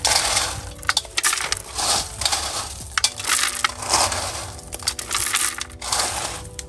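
Washed gravel being added to a clay pot, clattering and crunching in a series of irregular bursts, with stones clicking against each other and the pot.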